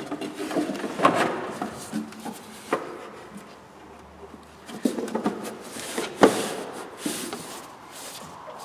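Irregular clunks, knocks and rubbing of things being handled, with a sharp knock about six seconds in.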